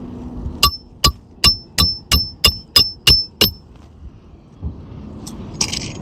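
Nine quick hammer blows, about three a second, on a roof snake nailing tool slipped under a lifted asphalt shingle, each with a short metallic ring as it drives a roofing nail home. A couple of softer scraping sounds follow near the end.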